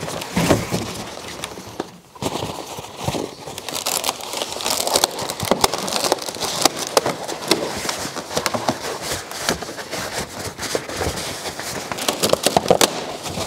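Latex balloons rubbing and squeaking against each other, with crinkling of a foil balloon, as clusters of small latex balloons are pushed into a balloon arrangement: a dense, irregular run of crackles and squeaks.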